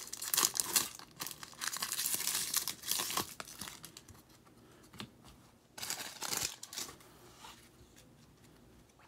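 Foil trading-card pack wrappers crinkling and tearing as Bowman Chrome packs are ripped open. The bursts run through the first three and a half seconds and come again around six seconds in, then give way to faint handling of the cards.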